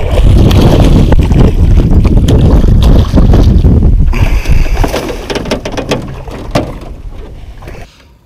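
Wind buffeting the microphone over splashing water and scattered knocks as a hooked walleye is brought up and scooped with a landing net beside the boat. The noise is loudest for the first few seconds, fades, and cuts off sharply near the end.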